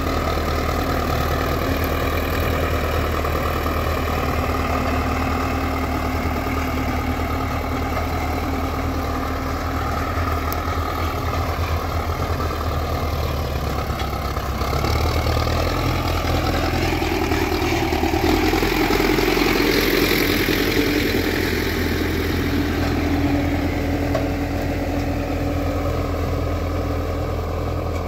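MTZ-50 tractor's four-cylinder diesel engine running steadily under load as it pulls a disc harrow through ploughed soil, swelling louder for a few seconds past the middle.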